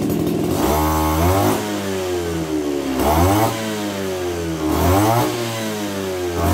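Kioritz ER311 brush cutter's 31 cc two-stroke engine being revved in short throttle blips about every two seconds, each rising sharply in pitch and then falling back toward idle.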